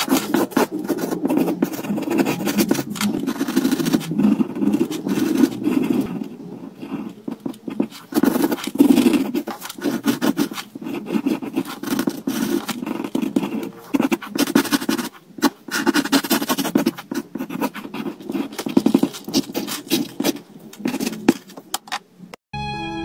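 Pencil scratching on paper in quick, irregular sketching strokes, heard close up. It cuts off suddenly just before the end.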